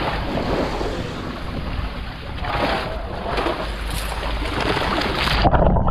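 Wind buffeting the microphone over the wash of sea water around a boat. The hiss cuts off abruptly near the end.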